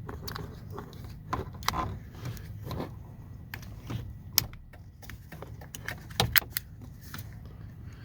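Irregular plastic clicks and knocks of a Ford F-150 steering column being reassembled by hand, with the multifunction switch and column parts fitted back into place. One sharp click comes about four and a half seconds in, and a quick run of louder knocks a little after six seconds.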